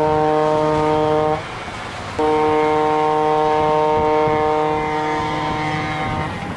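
Multi-chime railroad air horn sounding two blasts, a shorter one and then a long one of about four seconds. Under the horn is the rumble of a passing train.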